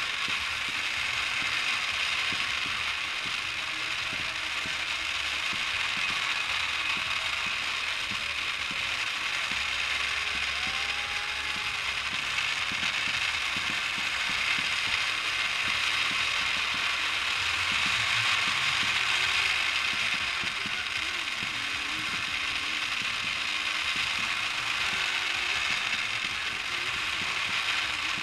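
Firework fountains spraying sparks with a dense, steady crackling hiss that holds without separate bangs.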